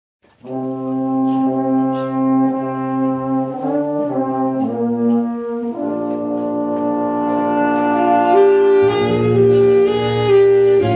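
Big band playing the opening of a song, its horns holding sustained chords that shift to new chords in the middle. Low bass notes join about nine seconds in.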